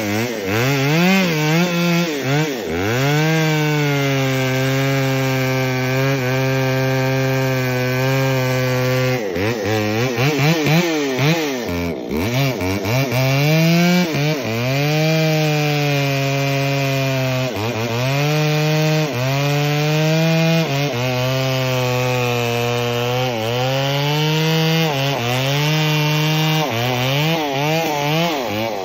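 Two-stroke gasoline chainsaw cutting into a tree stump, its engine note sagging under load as the chain bites and picking back up, over and over.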